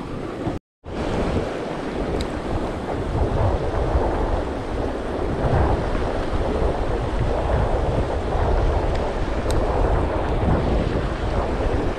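Fast mountain river water rushing over rocks, with wind buffeting the microphone in a low rumble. The sound drops out completely for a moment under a second in, then runs on steadily.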